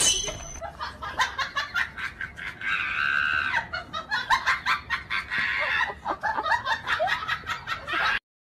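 A person laughing in rapid, high-pitched pulses, cutting off suddenly near the end.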